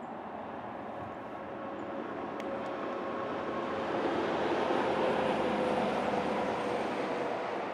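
A distant vehicle's drone with faint steady tones in it, swelling louder over the first four or five seconds and then holding.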